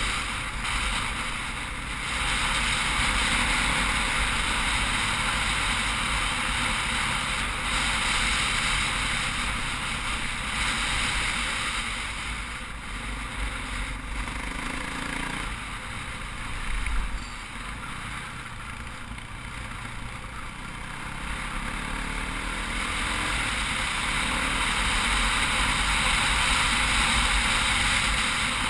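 KTM 450 single-cylinder four-stroke dirt bike engine running under way, mixed with wind rush on the microphone. It eases off for several seconds in the middle, then builds again toward the end.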